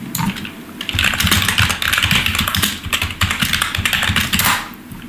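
Fast typing on a computer keyboard: a dense run of keystrokes that starts about a second in and stops shortly before the end.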